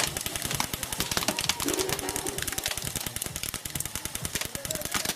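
Airsoft guns firing on full auto: a rapid, continuous clatter of shots.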